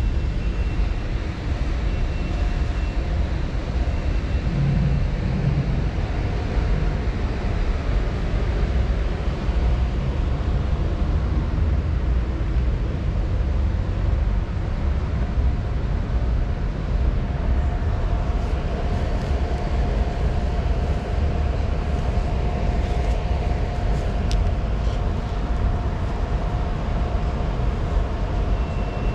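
Steady low rumble of a large store's room noise, with a faint constant hum under it.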